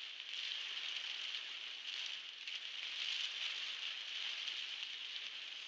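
Heavy rain falling on a car's roof and windscreen, heard from inside the car as a steady hiss with fine drop hits.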